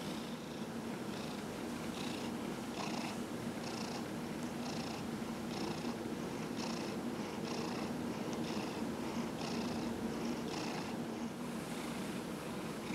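Domestic cat purring steadily, with a pulse about once a second.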